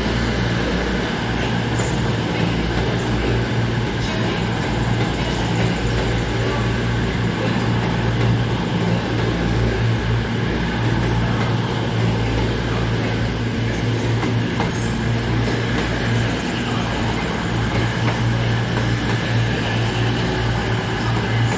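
CrossCountry Voyager diesel-electric multiple unit moving slowly along the platform, its underfloor diesel engines giving a steady low hum.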